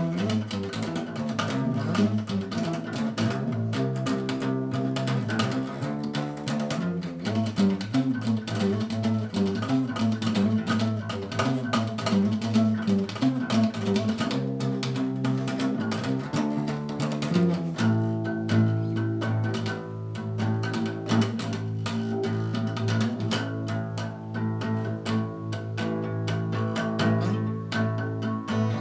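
Acoustic guitar strummed quickly and steadily, with no singing. About eighteen seconds in, the part changes to fuller, ringing low chords.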